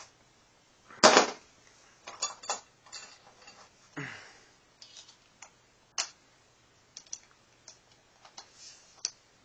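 Metal hand tools, a socket and ratchet, clanking and clicking against an aluminium V6 engine while a 12 mm socket is fitted to the timing cover bolts: a loud clank about a second in, a few more knocks over the next three seconds, then scattered light clicks.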